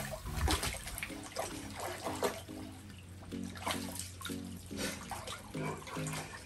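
Water splashing and sloshing in a shallow foldable dog pool as a Rottweiler wades and paws through it, in irregular splashes.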